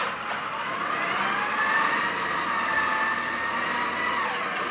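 Garbage truck driving up with its diesel engine running and a whine that rises over the first second or so, holds steady, then falls away near the end.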